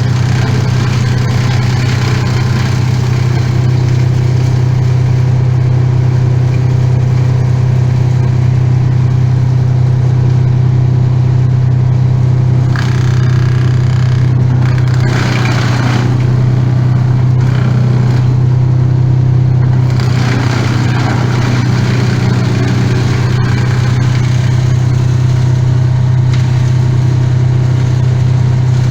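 An engine running steadily with a constant low drone that doesn't change in pitch, with a spell of rougher, hissing noise in the middle.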